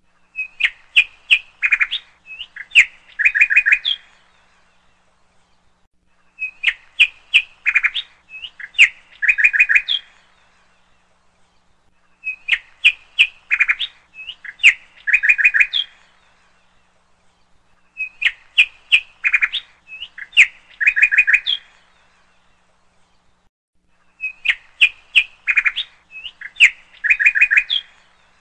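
Bird chirping in bursts of quick, high tweets, each burst about four seconds long and repeating every six seconds, five times in a row.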